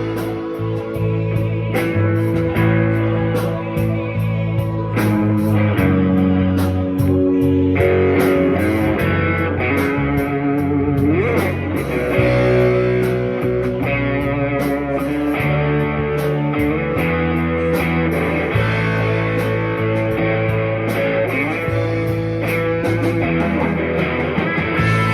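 Guitar played for a tone test: held notes and chords ringing over a steady low bass line, with a sliding note about eleven seconds in.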